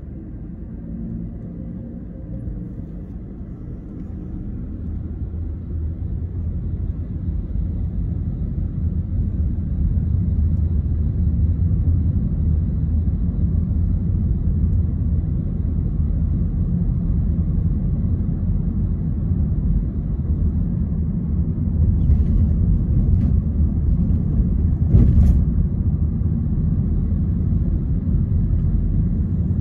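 Low rumble of a car's engine and tyres heard from inside the cabin as the car pulls away from a stop and cruises. It grows louder over the first ten seconds as the car gathers speed, then holds steady, with a few short clicks late on.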